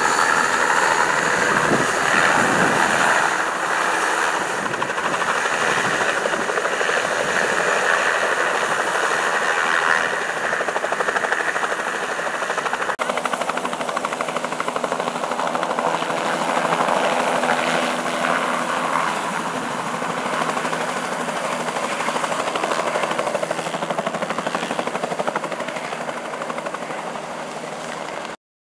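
A Bell 206-series turbine helicopter running close by, its turbine whine and rotor blades going steadily. The sound changes abruptly about halfway through, then grows quieter near the end before cutting off.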